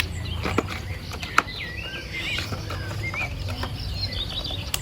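Small birds chirping in quick, varied calls throughout, with a few sharp clicks about half a second and about a second and a half in.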